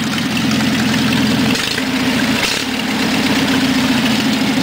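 1980 Dayton GT garden tractor's 20-horsepower engine idling steadily, running with no exhaust fitted.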